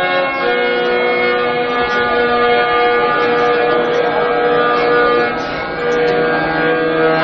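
Violin playing a slow melody in long, sustained bowed notes, with other steady held tones beneath, as an instrumental passage of a Bengali Baul song.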